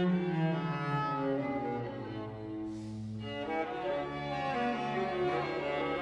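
String quintet of two violins, viola and two cellos playing bowed music: sustained notes that change every second or so over a low held cello line.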